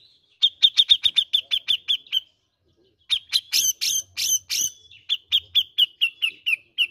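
Grey-cheeked bulbul (cucak jenggot) calling in two quick runs of repeated sharp chattering notes. The first run starts about half a second in, the second starts about three seconds in, and the notes in the middle of the second run are the loudest.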